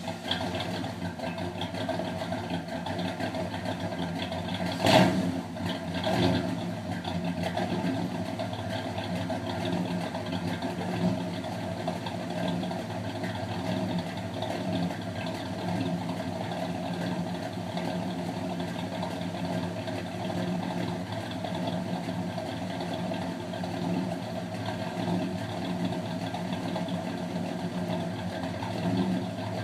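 Chevrolet Monte Carlo SS V8, freshly rebuilt in the bottom end, idling steadily just after start-up. About five seconds in there are two sharp pops roughly a second apart, the first being the loudest sound.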